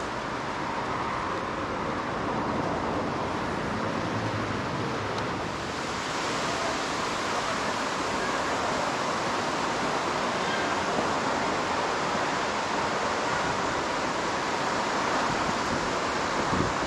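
Steady wind rushing over the microphone, becoming brighter and fuller about six seconds in.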